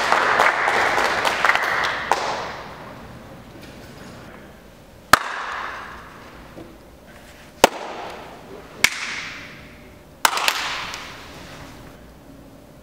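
Hand applause from a small group dying away over the first two seconds, followed by four lone hand claps spaced a second or more apart, each echoing in a large, nearly empty auditorium.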